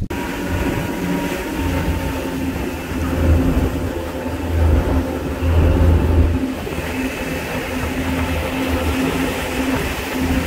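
Fishing boat's engine running with a steady low rumble as the boat moves through the water, with a rush of wind and water noise over it.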